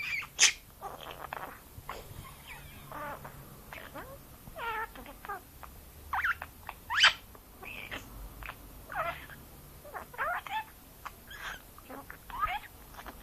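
Budgerigar chattering nonstop: a rapid string of short chirps, warbles, squeaks and clicks.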